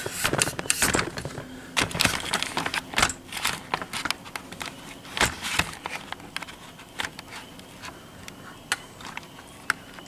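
Handling noise: irregular clicks, knocks and light rattles of the camera and things being picked up and set in place, busiest in the first half and thinning out after about six seconds.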